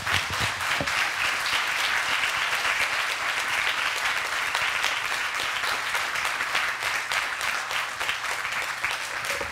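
Audience applauding: many hands clapping in a dense, steady wash that builds up over the first second or so.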